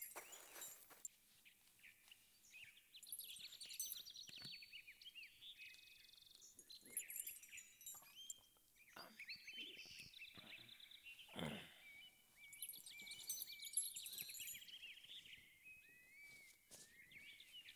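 Faint forest ambience: many small birds chirping and twittering, with a few soft knocks or rustles scattered through.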